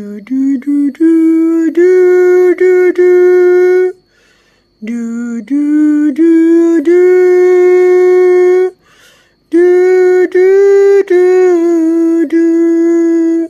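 A person humming a slow, wordless lullaby in three long phrases of held notes, with short breaks between them.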